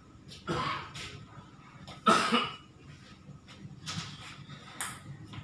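A person coughing twice, sharply, with lighter clicks of a table tennis ball being hit and bouncing on the table between the coughs.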